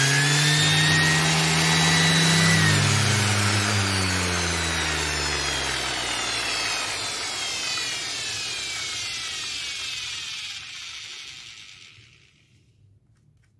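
Makita random orbit sander running freely at its top speed setting on a test run after a stator repair and new brushes, then switched off about three seconds in and spinning down with a steadily falling whine that fades out near the end.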